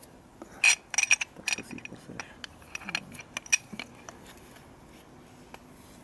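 Steel water-pump pliers clinking and tapping against a motorcycle's aluminium brake caliper as they are set over it to press the piston back in. There is a quick irregular run of sharp metallic clinks for about three seconds, and then they stop.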